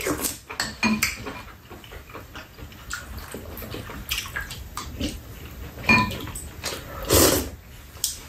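Spoons and chopsticks clicking and clinking against ceramic bowls and a metal pan during a meal, a few strikes ringing briefly, with eating noises between and one louder mouth sound about seven seconds in.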